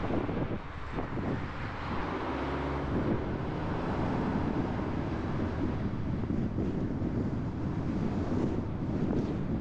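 Car driving along a road: engine and tyre noise mixed with wind rushing over the microphone, getting a little louder after the first couple of seconds as the car picks up speed.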